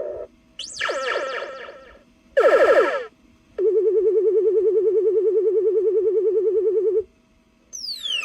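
Electronic sci-fi key-up sound effects from a CB radio sound module, played one after another. There is a short sweeping effect, then a brief falling zap, then a fast-warbling tone held for about three seconds and cutting off, and near the end a new effect of rapidly falling pitch sweeps begins.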